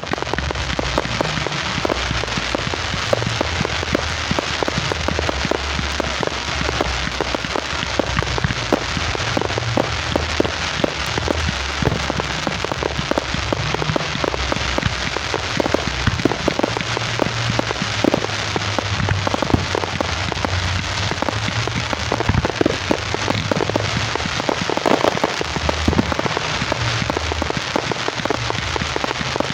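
Fireworks crackling: a dense, continuous stream of small rapid pops, with a low rumble underneath.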